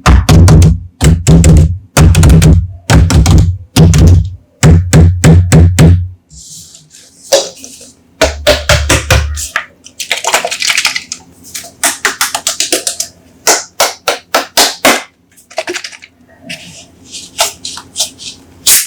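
Plastic Coca-Cola bottles handled on a hard surface: a run of heavy thunks, then hissing bursts of fizz as caps are twisted open, then many quick taps and clicks.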